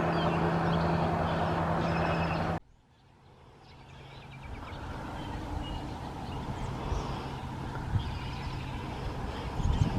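Steady engine hum of an idling vehicle with birds chirping over it, cut off abruptly about two and a half seconds in. After a moment of near silence, outdoor ambience fades back in with birds chirping and a low rumble.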